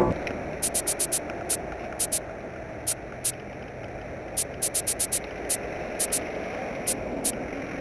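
Steady outdoor background hiss with irregular clusters of short, sharp, high-pitched ticks.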